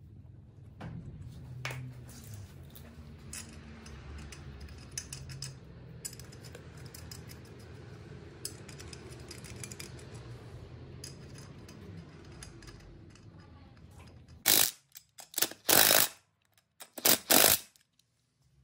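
Small metallic clicks and handling noises as a wheel is fitted onto an ATV hub and its nuts put on. Near the end come several short, very loud bursts of noise, each cut off abruptly.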